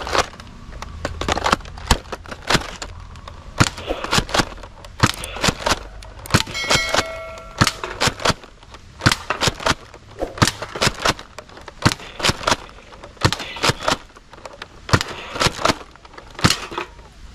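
Nerf Delta Trooper foam-dart blaster being primed and fired over and over, a run of sharp plastic clacks about two or three a second. A short beeping tone sounds about seven seconds in.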